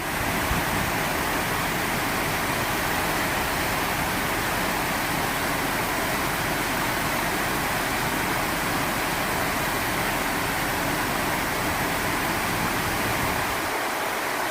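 Rushing water of a mountain creek, a steady even rush with no break.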